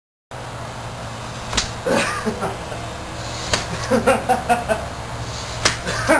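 A person laughing in short bursts, with a few sharp clicks and a steady low hum under it.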